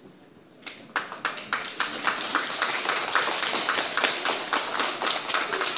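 A room full of children and adults applauding, many hands clapping together; the clapping starts just under a second in after a brief hush and keeps on steadily.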